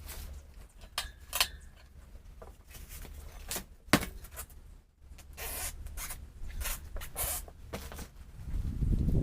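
Hand work on the motorcycle's front wheel and tyre: scattered clicks and knocks of tools and parts, with a sharp knock about four seconds in and stretches of scraping and rubbing. A low rumble swells near the end.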